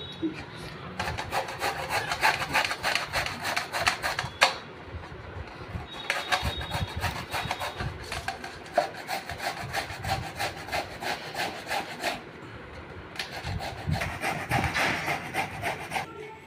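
Bottle gourd being grated on a handheld metal grater resting in a steel bowl: fast, repeated rasping strokes, pausing briefly twice.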